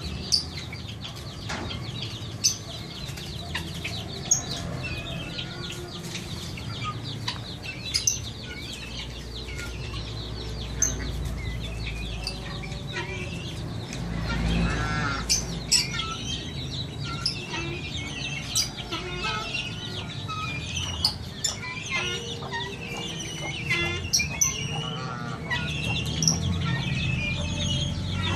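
Chickens clucking, with many short bird chirps and scattered sharp sounds throughout. A low rumble swells about halfway through.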